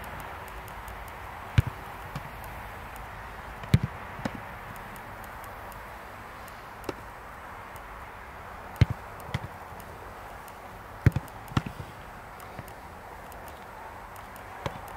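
Sharp thuds of a football being struck during goalkeeper drills: about six loud knocks a couple of seconds apart, several with a lighter knock just after, over a steady background hiss.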